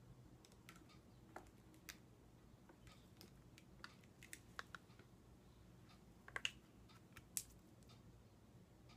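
Faint, scattered light clicks and taps of makeup being handled, among it an eyeshadow palette and brush, with the sharpest clicks about six and a half and seven and a half seconds in.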